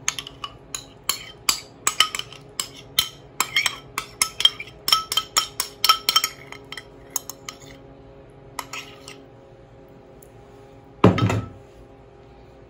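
A metal spoon clinking and scraping against a ceramic bowl, quick repeated clinks for about seven seconds as soft ricotta cheese is scooped out. A few more clinks follow, then a single louder knock about eleven seconds in.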